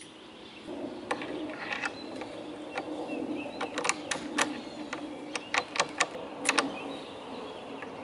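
Master Lock M115XKADLF weatherproof padlock and a metal slide-bolt door latch being worked by hand as the lock is hooked on and locked: a string of sharp metallic clicks and clacks, thickest about four to six and a half seconds in, over a steady low hum.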